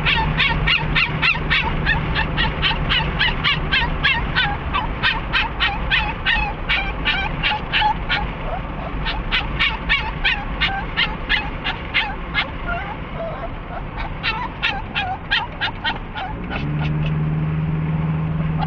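Excited Chihuahua panting fast, about four breaths a second, with small high whines between breaths.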